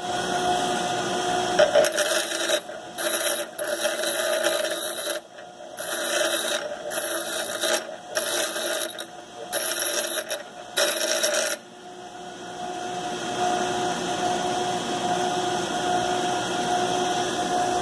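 Delta ShopMaster bench grinder running steadily while the end of a cut-off steel head bolt is pressed against the wheel in about eight short grinding passes, rounding it into a guide pin. The passes stop about two thirds of the way through and the grinder runs on alone.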